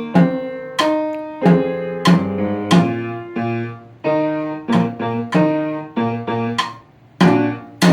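Piano playing a solo piece: single notes and chords struck one after another, each ringing out and fading before the next.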